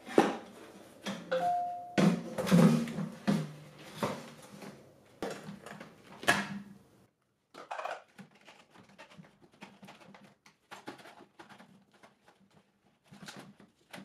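Handling clatter from a wet/dry shop vacuum being taken apart: the plastic power head and pleated cartridge filter knock and scrape against the stainless steel tank, with a brief ringing tone about a second in. After the first half it drops to lighter, scattered clicks and rustles as the filter is worked off its cage.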